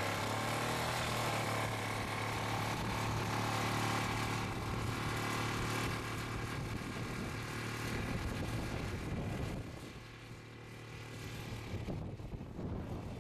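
Small engine of a vintage two-wheel walking tractor pulling a sickle-bar mower, running steadily under load while cutting grass. It grows fainter about ten seconds in as the machine moves away.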